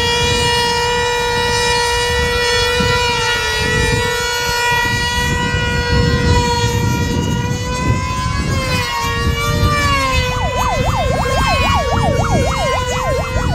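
Model-airplane two-stroke glow engines of control-line combat planes running flat out with a high, steady whine. After about eight seconds the pitch begins to waver as the planes take to the air, and near the end a second engine's tone swings rapidly up and down, about four times a second.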